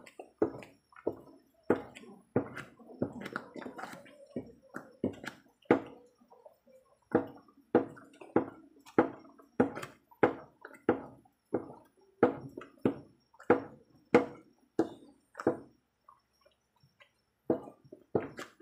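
Thick ube halaya (purple yam jam) mixture cooking down in a pan, plopping and squelching in short bursts about every half second. The bursts stop for a second or so near the end.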